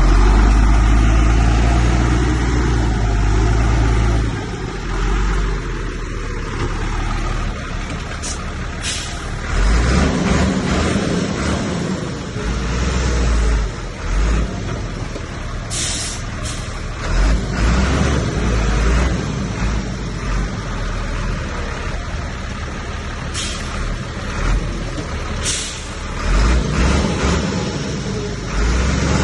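Diesel engines of heavy earthmoving machinery running under load, a deep rumble that swells and eases, with several short sharp sounds over it.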